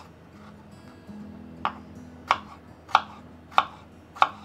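Kitchen knife chopping a raw potato into cubes on a wooden cutting board: five evenly spaced knocks of the blade against the board, starting about a second and a half in, over soft background music.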